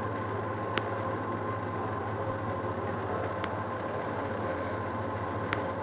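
Peak Tram funicular's haul cable running in the track at the station, a steady mechanical hum with a faint steady whine. Three sharp clicks stand out, about a second in, in the middle, and near the end.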